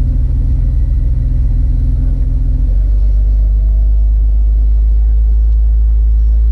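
Jeep engine and road rumble heard from inside the cab while driving. The engine's pitched tone drops away under half way through, leaving a deeper steady rumble.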